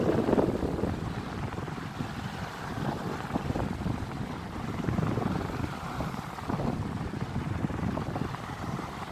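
Living & Co electric fan running, its spinning blades blowing air onto the microphone in an uneven whooshing rumble that surges and eases.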